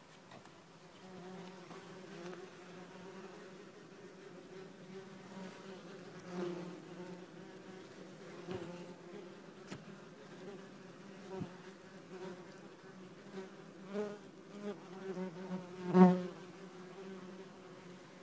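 Worker wasps buzzing in flight around their nest, a steady buzz that swells each time a wasp passes close, loudest about two seconds before the end. The wasps are agitated by insecticide just applied to the nest.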